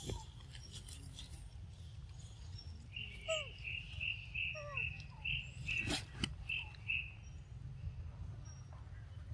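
Forest ambience: a string of about a dozen short high chirps, evenly spaced at two to three a second, from about three seconds in to about seven seconds in, over a steady low rumble. A couple of short falling squeaks come in the middle, and two sharp clicks about six seconds in.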